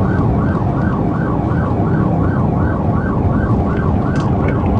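Police patrol car siren in a fast yelp, about three rising-and-falling sweeps a second, heard from inside the speeding car over steady engine and road noise.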